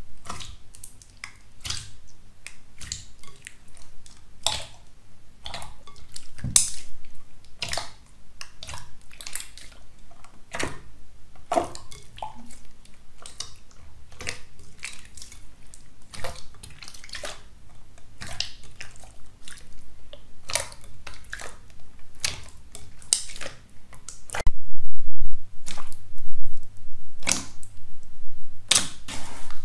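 Hands squishing and kneading wet clear slime: irregular sharp wet clicks, pops and squelches. About 25 seconds in the sound breaks off briefly and comes back louder as another slime is pressed flat under the fingers.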